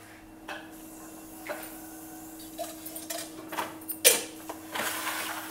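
Kitchen utensil clatter: a few light clinks, then a sharp metal clank about four seconds in as a small tadka pan is set on the gas stove's grate, over a faint steady hum.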